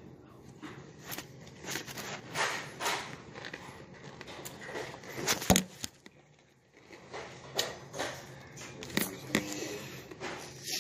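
Chewing a spoonful of cereal close to a phone's microphone, mixed with irregular knocks and rubbing from the phone being handled; the loudest is a sharp knock about five and a half seconds in.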